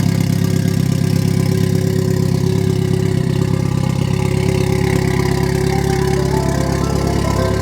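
Rebuilt Mitsubishi Lancer Evolution VIII's turbocharged 4G63 inline-four idling steadily.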